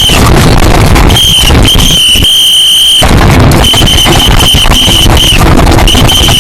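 Alarm sound played at full volume and heavily distorted: a piercing high tone in irregular blasts, each from a fraction of a second to over a second long, over a constant loud crackle.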